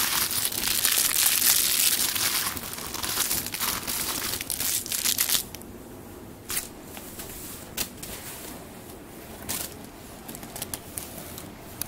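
Plastic cereal bag crinkling loudly and continuously as a Bengal kitten attacks it, for about five seconds. Then it turns to fainter scattered crinkles and taps.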